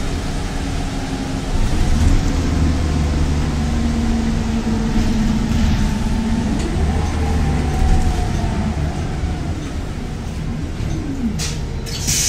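Steady low rumble of motor-vehicle engines, with engine notes rising and falling in pitch as vehicles pass or rev. A short burst of hiss comes near the end.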